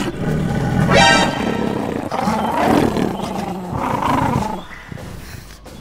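Lioness growling and snarling in several loud bursts, with a sharp high yelp about a second in, over background music; quieter near the end.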